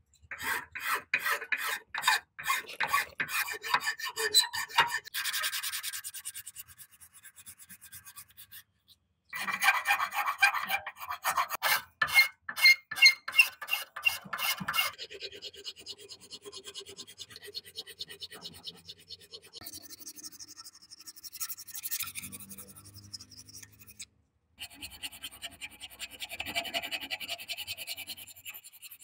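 Hand file rasping along the edges of a hatchet's black handle scales in quick, repeated strokes, in several runs, some quieter and finer than others.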